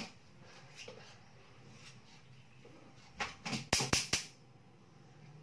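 Swatting at mosquitoes: after a quiet stretch, a quick run of five or six sharp slaps about three to four seconds in.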